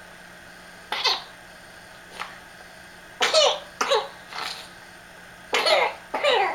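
A girl coughing in a night-time coughing fit: about seven short, harsh coughs, most coming in quick pairs, with brief pauses between them.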